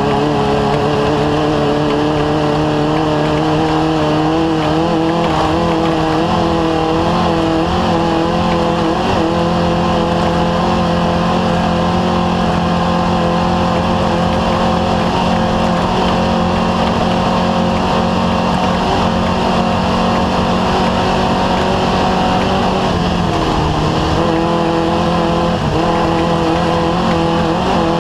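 Off-road race car's engine running hard at high, fairly steady revs that waver slightly, with a brief drop in revs about 23 seconds in before it picks back up.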